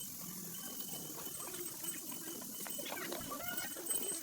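Steady rain pattering, with faint short squeaky calls in the second half.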